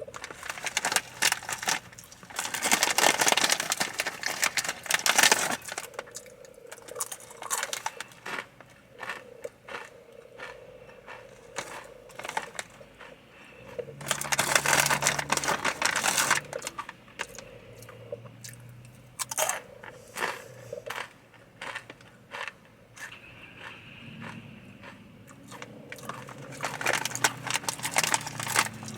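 Crunching of Takis rolled tortilla chips being chewed, coming in loud crackly bursts with quieter stretches of chewing between.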